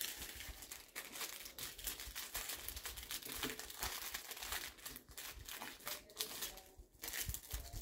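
Clear cellophane wrapping sheet crinkling as hands roll it around a single rose stem: a continuous run of small irregular crackles, with a couple of brief pauses near the end.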